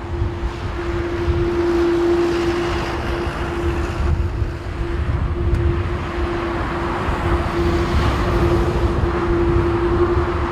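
Airbus A350-900's Rolls-Royce Trent XWB jet engines running, a steady hum over a heavy low rumble that rises and falls, with a hiss that grows a little in the second half.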